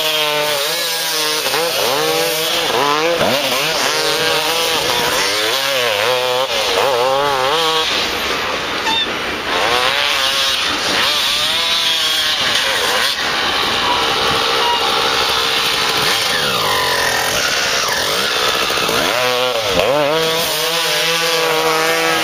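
Two-stroke Suzuki RM dirt bike engines revving hard, the pitch surging up and down quickly as the rear wheel spins and throws dirt. In the middle stretch the engines sound farther off and steadier, and the sharp revving returns near the end.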